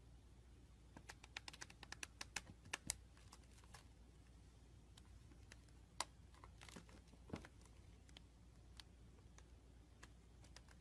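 Slime being pressed and squeezed by hand, giving faint, sharp little pops and clicks. A quick run of them comes in the first few seconds, then single ones now and then.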